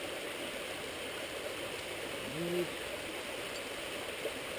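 Steady rushing of a small creek running nearby, with a brief short voiced hum or grunt about halfway through.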